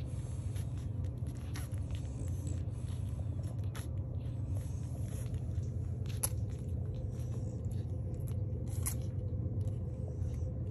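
Week-old French bulldog puppies nursing: wet suckling and smacking clicks at irregular intervals over a steady low hum.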